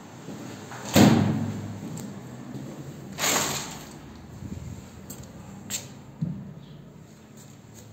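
A glazed door being swung open: a sharp thud about a second in, then a longer scraping rustle around three seconds, followed by a few light clicks and knocks.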